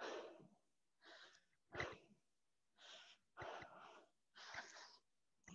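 A woman breathing hard from exertion: short, noisy breaths about once a second, faint.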